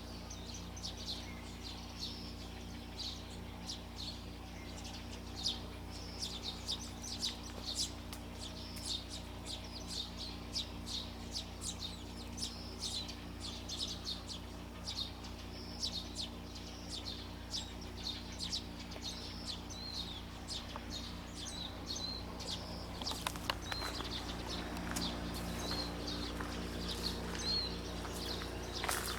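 Small birds chirping continuously, short high chirps a few times a second, with short rising notes joining in during the second half, over a steady low hum. A sharp click comes right at the end.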